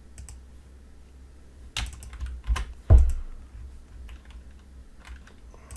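Typing on a computer keyboard: scattered keystrokes, with a quick run of louder key presses about two to three seconds in.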